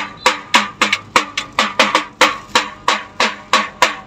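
Steady drum rhythm, about three to four beats a second. Each stroke rings with a pitch that drops.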